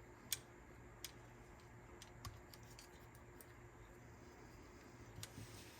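Sony TC-K777ESII cassette deck's tape-transport electromagnets (solenoids) being tested: a few short, sharp mechanical clicks, the loudest about a third of a second in and others about a second and two seconds later, over a low steady hum.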